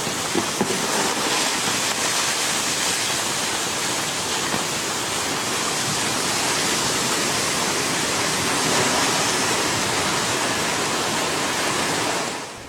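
Steady rushing of water and mud from a hillside landslide after heavy rain, which cuts off suddenly near the end.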